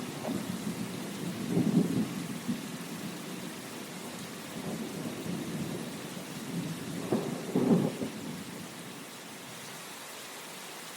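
Steady rain hissing, with low rumbling swells that peak about two seconds in and again just before the eighth second, then die down.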